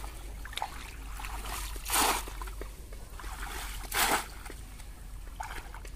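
Bamboo polo fish trap plunged hard into shallow river water: two loud splashes about two seconds apart, with smaller splashes and trickling water between. Each plunge presses the cone-shaped trap down onto the riverbed to pen in any fish.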